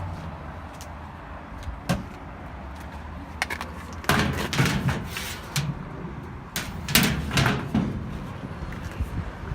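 Steady low rumble of a vehicle, with a sharp click about two seconds in and two longer bursts of rattling, knocking noise near the middle and later on.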